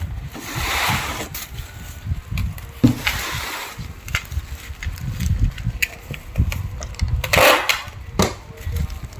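Hands wrapping a small fragile item in protective packing material: irregular rustling and crinkling, with three louder swishes and scattered bumps and clicks.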